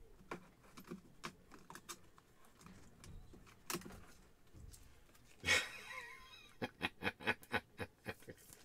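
Soft plastic clicks and taps of a trading card being handled and slid into a penny sleeve and rigid top loader, with a quick run of clicks in the last couple of seconds. A brief voice-like sound, the loudest thing here, comes about five and a half seconds in.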